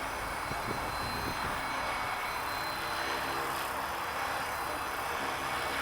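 Flywing FW450 electric RC helicopter in flight: a steady whine from its motor and spinning rotor blades over an even hiss.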